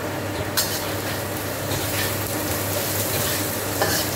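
Julienned ginger and garlic sizzling in hot oil in a carbon-steel wok, stirred with a metal wok spatula, with a sharp scrape of the spatula about half a second in.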